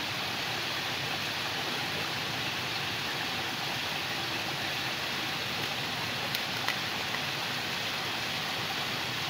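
Steady, even watery hiss from a small rocky stream's surroundings, with a couple of faint ticks a little past the middle.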